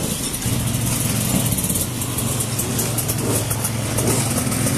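Enduro dirt bike engines idling nearby, a steady low running note that sets in about half a second in.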